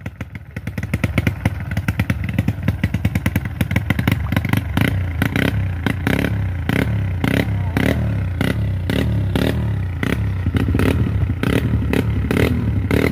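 Trail motorcycle engine revving hard in uneven surges as the bike climbs a steep trail slope, starting quieter and growing loud about a second in.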